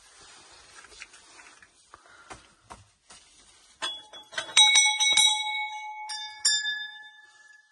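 Small brass shrine bells hanging from a rail, rung by hand: after some faint shuffling and a few soft knocks, about half a dozen quick strikes begin about four seconds in, each leaving a long ringing tone of several pitches. A second, higher-pitched bell is struck twice near the end and both ring out.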